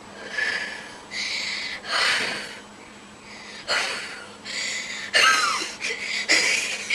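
Birthday-cake candles being blown out: a string of about eight short, breathy puffs of air, each under a second long.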